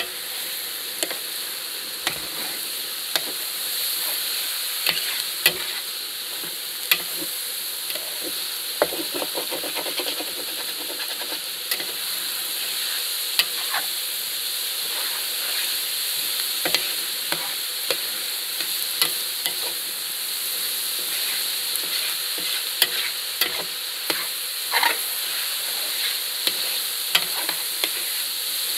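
Meat and vegetables sizzling steadily in a large plow-disc paella pan, while a utensil scrapes and taps the pan bottom in irregular clicks, stirring and loosening the browned bits stuck to the base.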